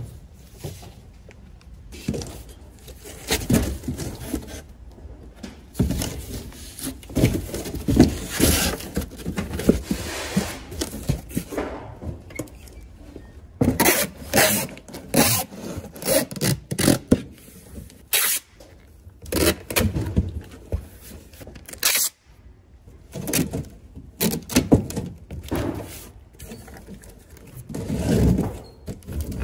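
Cardboard boxes being handled: flat box sheets sliding and scraping against each other and a box pressed shut and moved, giving a run of irregular scrapes, rubs and dull thuds.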